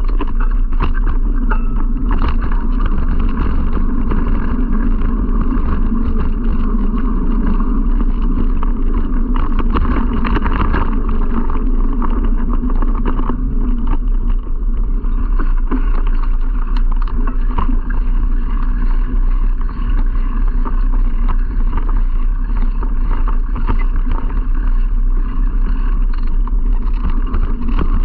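Steady rushing wind noise on an action camera's microphone, over a constant low rumble and dense rattling from riding fast over a dirt trail.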